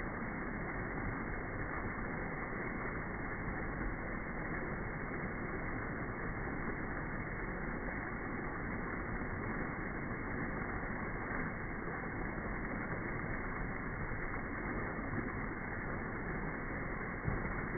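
Waterfall rushing steadily, with rain falling. There is one brief tap near the end.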